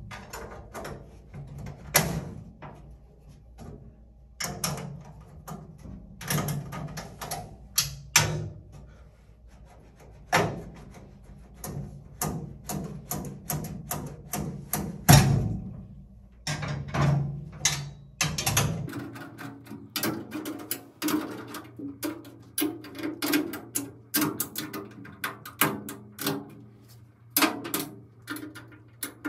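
Irregular metallic clicks, taps and knocks of a screwdriver and metal brackets being handled inside a steel changer cabinet, coming quicker and closer together in the second half.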